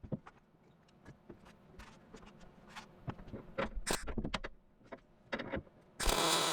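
Light clicks and knocks of handling, then near the end a short crackling burst of a welder laying a tack weld joining the tail panel to the quarter panel flange.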